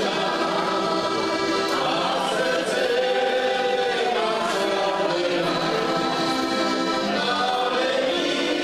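Three heligonkas, Slovak diatonic button accordions, playing a folk tune together in full, steady chords, with men's voices singing along.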